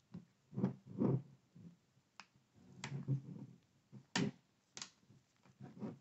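Snap clips of a Lenovo Ideapad 1i laptop's plastic bottom cover popping loose one after another as it is pried off. Six or seven sharp, irregularly spaced clicks, with soft handling rustle between them.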